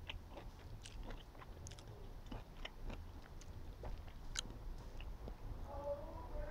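Phone microphone handling noise: irregular small clicks and crackles over a low rumble, with a faint wavering tone near the end.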